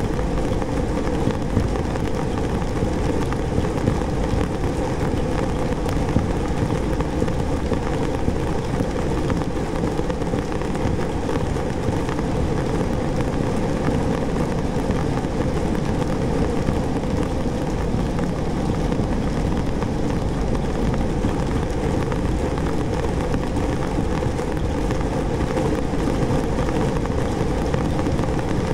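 329 cotton balls on strings, each swung by a small DC motor, striking the inside wall of a large industrial tank. Together they make a dense, steady patter like rain, strongest in the low range.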